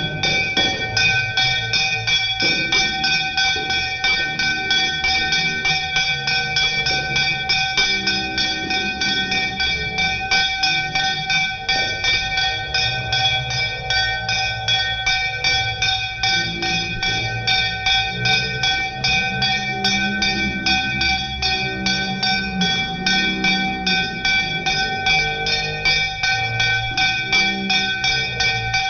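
A metal aarti bell rung rapidly and without pause, its bright ringing tones holding steady over a quick, even run of strikes.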